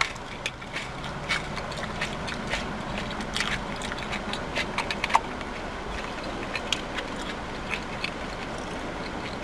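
Close-up chewing and mouth sounds of someone eating a veggie burger: many small, irregular wet clicks over a steady low hum.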